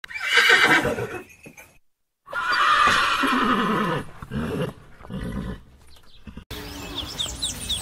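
Horse neighing: a short whinny at the start, then a longer one about two seconds in that falls in pitch, followed by quieter, broken sounds. Near the end a cut brings in short, high chirping calls of another animal.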